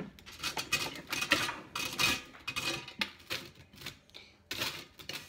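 Dry toast scraped on a stainless steel box grater in short, irregular strokes, with clinks of metal on the grater and the metal tray.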